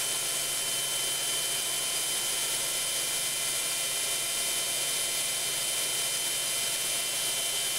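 AN/GRC-106 amplifier's cooling fan running steadily, a constant rush of air with a faint high whine.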